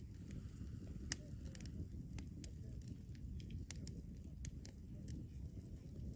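Wood campfire crackling: scattered sharp pops over a steady low rumble.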